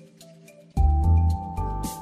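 Background music: a quiet stretch of sustained tones, then about three quarters of a second in a loud entry of deep bass and drums with ticking hi-hats.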